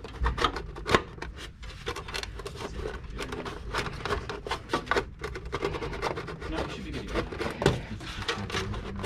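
Plastic air shroud and metal drive cage inside a Dell Precision 7920 workstation tower being handled and pushed into place: a string of sharp plastic clicks and knocks with rubbing and scraping against the steel chassis.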